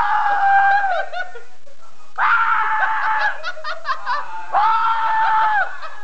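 Three high-pitched screams, each held steady for about a second, with laughter between them.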